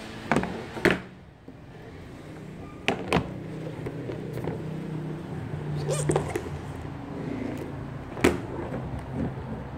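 Hard plastic toy packaging handled close to the microphone: about half a dozen sharp clicks and knocks spread out, over a steady low hum.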